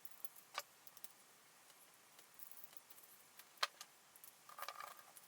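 Faint, scattered metallic clicks and ticks as small screws are fitted back into a knife-sharpening clamp. There are two sharper clicks, one about half a second in and one about three and a half seconds in, and a short run of lighter clicks near the end.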